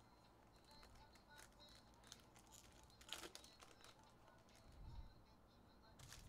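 Faint crinkling and tearing of a foil trading-card pack wrapper being opened by hand, with a slightly louder crackle about three seconds in.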